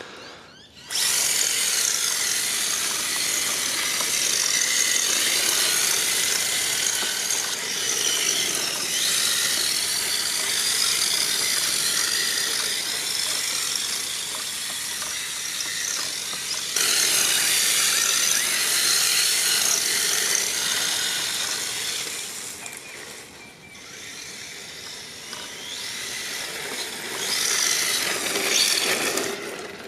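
Electric RC drift car's motor and gear train whining, the pitch rising and falling with the throttle as it drifts on its drift wheels. It starts about a second in and eases off briefly after about twenty-three seconds.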